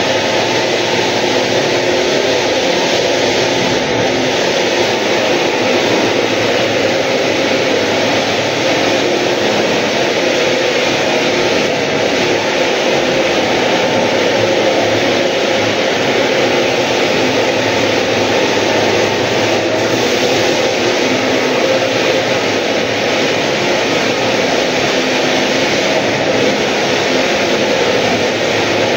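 Walk-behind floor sanding machine running steadily as it sands a wooden floor, a loud continuous noise of motor and abrasive on wood.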